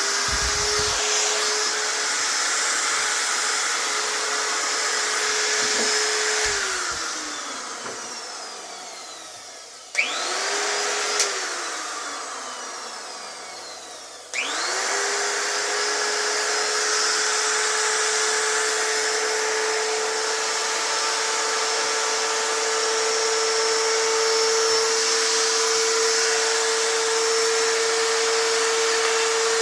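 Metabo die grinder's electric motor, just fitted with a replacement 6202 bearing, running with a steady whine. It is switched off about six seconds in and winds down with a falling whine. It is switched on briefly and left to wind down again, then started once more and left running steadily.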